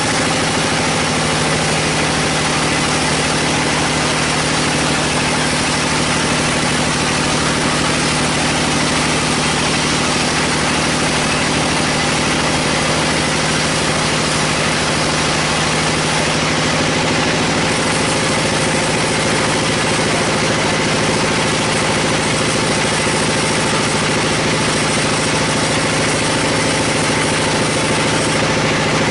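Band sawmill running steadily as its blade cuts lengthwise through a log: a continuous machine drone with an even hum beneath it.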